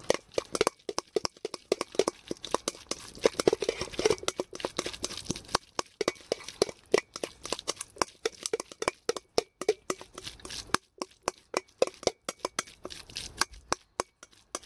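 Metal spoon stirring a thick mixture in a metal mixing bowl: rapid, irregular clinks and scrapes of spoon against the bowl, with a brief pause about eleven seconds in.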